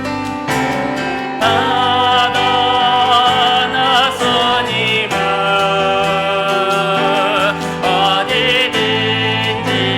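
Contemporary worship music: a singer holding notes with vibrato, without clear words, over piano and bass.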